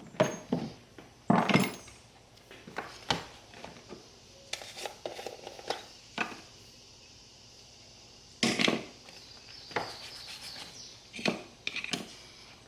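Scattered knocks and clinks of small hard objects being handled and set down, about seven or eight over the span, with quieter rustling between them.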